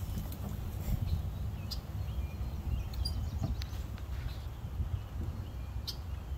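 Wind rumbling on the microphone, with a few short, high bird chirps scattered through.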